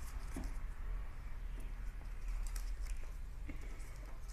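A small square of paper being folded and creased by hand: faint rustles and light scattered taps over a steady low rumble.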